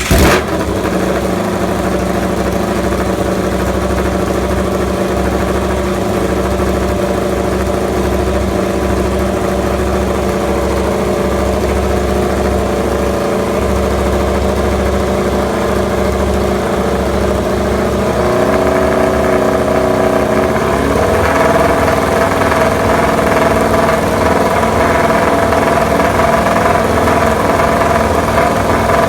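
MotoGP race motorcycle engine catching with a sudden loud burst, then idling steadily. Its idle note steps up a little about 18 seconds in and again a few seconds later.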